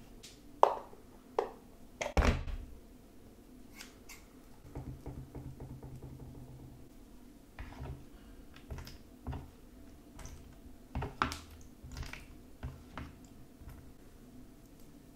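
Plastic handling sounds: a few sharp clicks and snips, the loudest about two seconds in, as scissors cut at a deodorant stick's plastic casing. Then a plastic spoon taps and scrapes in a plastic tray, with scattered light taps.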